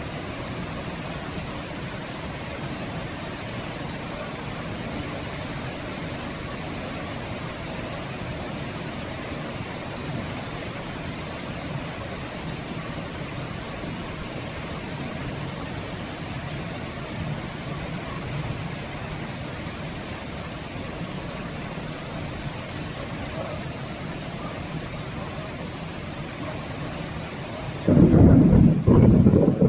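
Steady rain falling with a low rumble of thunder underneath. About two seconds before the end, a sudden, much louder, heavy rumbling of thunder sets in and goes on.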